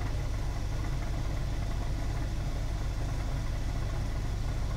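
Car engine idling steadily, heard from inside the cabin as an even low rumble.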